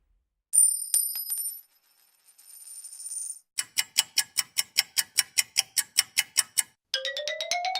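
A string of cartoon sound effects. A bright metallic ding rings for about three seconds, then comes a fast even run of clicks, about six a second. Near the end a rising pitched tone starts, pulsing with rapid clicks.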